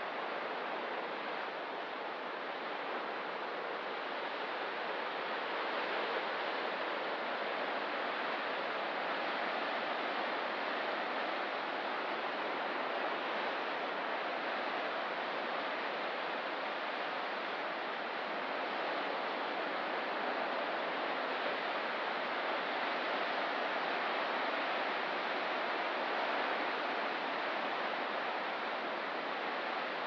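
Ocean surf washing steadily, a continuous hiss of breaking water with no single wave standing out.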